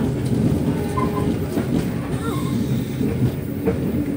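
Steady low rumble of a moving passenger train, with a few faint clicks.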